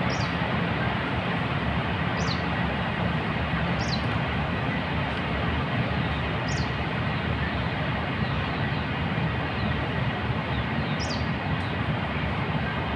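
Small birds giving short, high, falling calls about five times over a steady rushing background noise.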